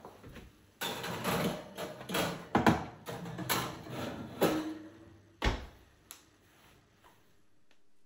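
Kitchen handling sounds: a run of clatters, knocks and scrapes, with a brief ring near the middle and a heavy thump about five and a half seconds in.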